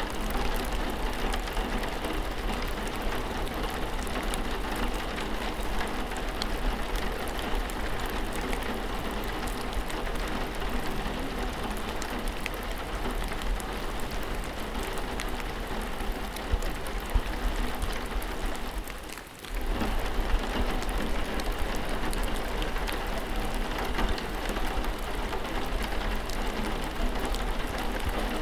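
Rain falling steadily: an even hiss with scattered drop ticks. It dips briefly about two-thirds of the way through, then comes back at the same level.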